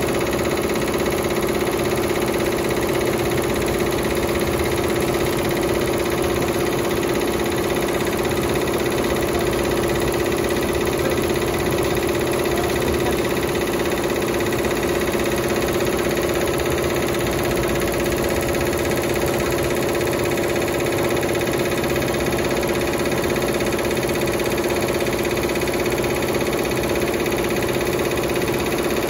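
Maatri/Lejia multi-head computerized embroidery machine running steadily, its needle heads stitching into a woven mat, with a constant mechanical hum.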